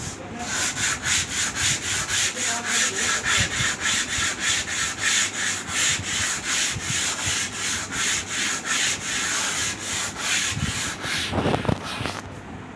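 Sandpaper rubbed by hand back and forth along a wooden plank, a fast, even rasping at about four strokes a second: smoothing the board before painting. The rubbing stops shortly before the end.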